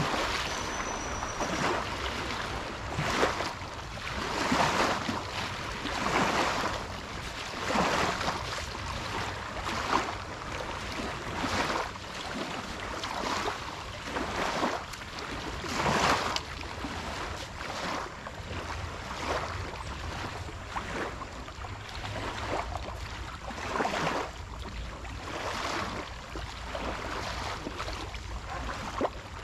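Small river waves lapping and splashing against a sandy bank and a half-sunk log, a wash that swells and falls back every second or two.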